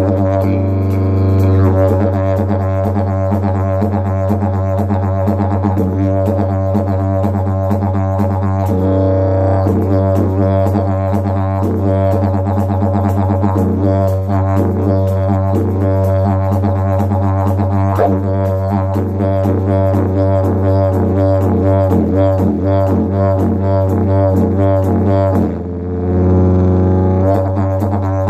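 Wooden didgeridoo playing a steady low drone with a fast rhythmic pulsing in its overtones. Near the end the sound dips briefly, then the drone comes straight back.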